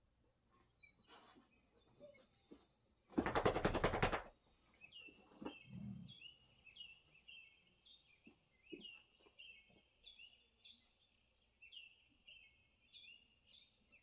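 A loud rattling burst about a second long a few seconds in, then a steady string of short high chirps, each dropping in pitch, about two a second, playing from a TV's nature-video soundtrack.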